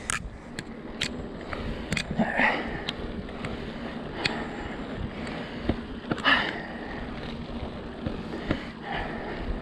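Bicycle riding up a trail: steady tyre and rolling noise with scattered clicks and knocks from the bike. A few heavy breaths or sniffs come from the rider on the climb.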